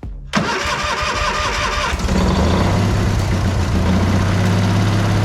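Kohler 20 hp engine of a Vermeer 206 stump grinder cranked by its newly replaced electric starter for about a second and a half, then catching and running steadily.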